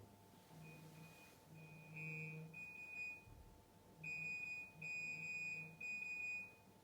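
A run of high, steady electronic beeps: a few short, faint ones at first, then three longer beeps in the second half.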